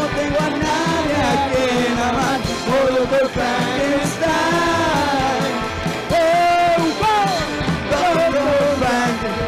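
Live rockabilly band playing, with a lead vocal over upright bass, electric guitar and drums.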